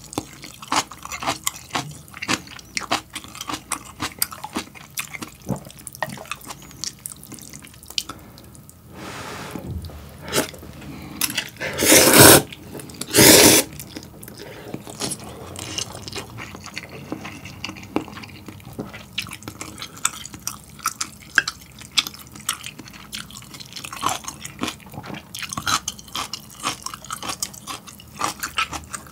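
Close-miked mouth sounds of eating instant ramyeon noodles and kimchi: wet chewing and smacking, with two loud slurps of noodles near the middle.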